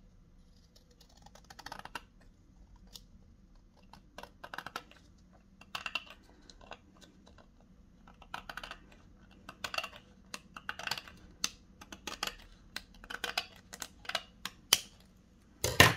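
Scissors snipping through white cardstock in a run of short, crisp cuts about a second apart, trimming an uneven edge off a folded paper photo frame, with a louder knock just before the end.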